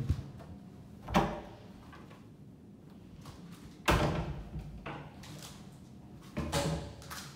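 Closet doors being opened and shut by hand: four separate knocks and thuds, the loudest a sharp bang about four seconds in.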